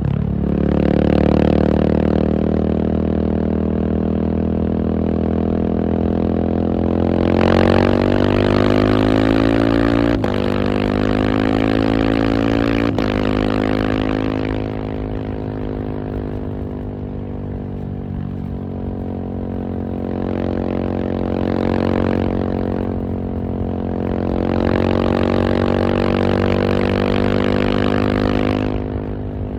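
KTM 690 SMC R supermoto's single-cylinder engine under way. Its note climbs under acceleration and drops sharply twice, about ten and thirteen seconds in, at upshifts, then rises and falls with the throttle.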